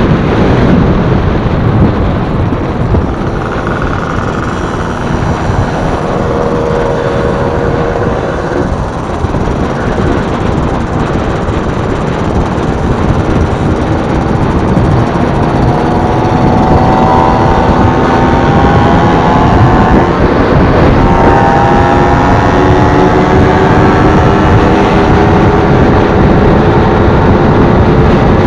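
Kawasaki KR150 two-stroke motorcycle engine running under way, over heavy rushing wind and road noise. Its pitch climbs, drops and climbs again in the second half as the bike accelerates.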